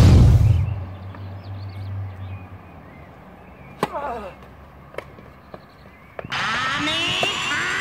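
Cartoon bomb explosion sound effect at the start: a loud boom with a low rumble that dies away over about two seconds. Tennis balls are struck by rackets twice around the middle. About six seconds in, a dense chorus of chirping birds starts.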